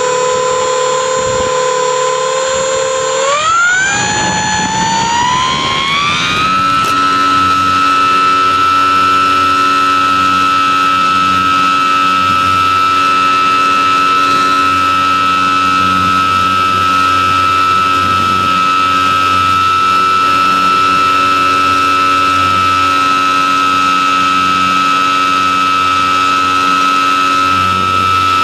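E-flite Apprentice S 15e RC trainer's brushless electric motor and propeller, heard from on board the plane. It whines steadily, then rises in pitch about three seconds in as the throttle is opened for takeoff. By about seven seconds it holds a higher steady whine as the plane climbs out and flies.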